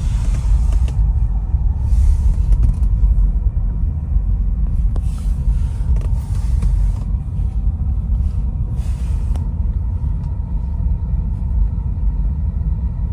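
Steady low rumble inside a slowly moving car's cabin, with a brief hissing swell every few seconds.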